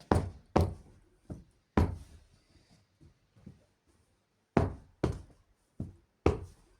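A series of sharp knocks of hard objects being handled and set down, about eight clear ones at irregular intervals with a pause in the middle.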